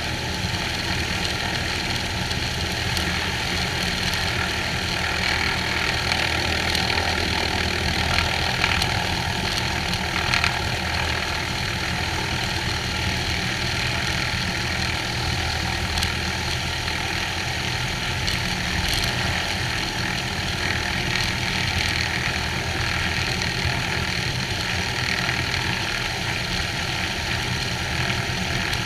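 Cessna 182H's six-cylinder Continental O-470 engine and propeller idling steadily on the ground.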